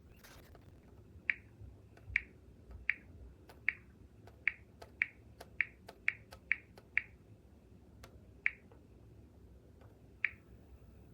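A series of about a dozen sharp clicks, each with a brief ringing tone. They come about two a second in the middle and thin out towards the end.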